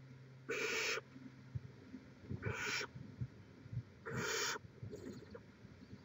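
Barn owl owlets giving their hissing, snore-like calls: three harsh hisses of about half a second each, roughly a second and a half apart, the food-begging call of nestlings. Faint scratching between them.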